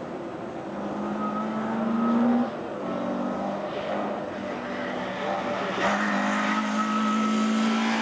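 Group A race car engine running hard at high revs up a hillclimb, the note building, breaking off briefly about two and a half seconds in, then growing louder and held as the car comes close.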